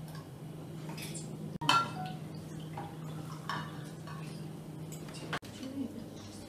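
Forks and knives clinking against plates and glasses at a dinner table. A few sharp clinks stand out, the loudest about two seconds in, over a steady low hum that stops shortly before the end.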